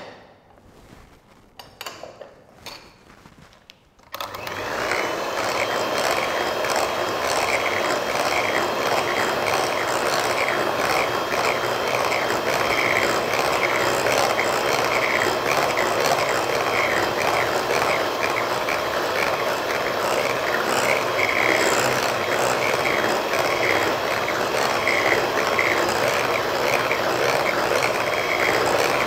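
A Philips electric hand mixer is switched on about four seconds in and runs steadily, with a steady high whine, its beaters working egg into creamed margarine and sugar for cake batter. Before it starts there are a few light knocks.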